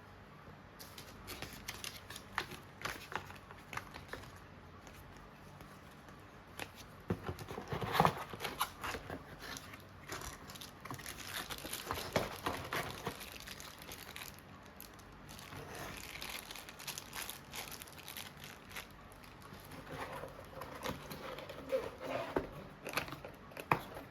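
Packaging being unwrapped and handled: plastic and paper crinkling, with scattered light clicks and knocks.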